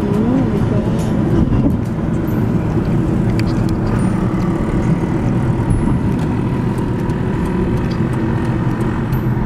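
Steady road and engine noise inside the cabin of a moving car, a low rumble without pauses.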